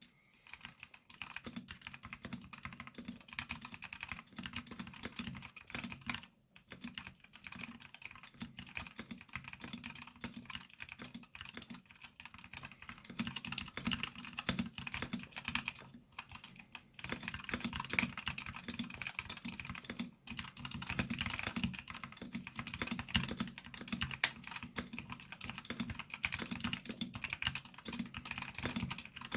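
Continuous typing on a Royal Kludge RK68 mechanical keyboard fitted with Gateron Red linear switches: a fast, steady run of soft key clacks, with a few short pauses.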